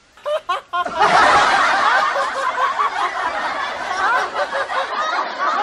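Laugh track: a few short laughs, then from about a second in many voices laughing together until just before the end.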